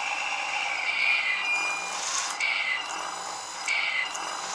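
Beier sound module in a Tamiya scale truck playing a running truck engine sound through its small speaker, with two short air-brake hisses.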